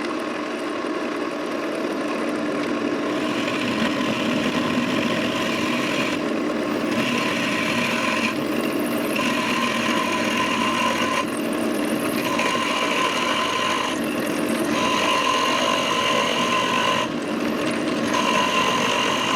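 Drill press running with a large ball-making bead drill bit cutting into a block of wood. A cutting tone comes and goes every second or two as the bit bites.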